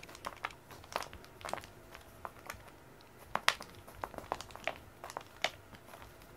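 Silicone-tipped cat teaser wand flicked and slapping across foam floor mats while a cat paws at it: over a dozen irregular sharp taps and clicks, the loudest about three and a half seconds in.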